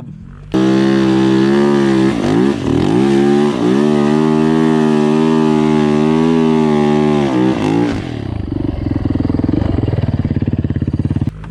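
Dirt bike engine held at high revs, dipping briefly twice. About eight seconds in it drops to a rough, rapidly pulsing run, then cuts off near the end. The noise was loud enough that the riders feared the engine had blown up.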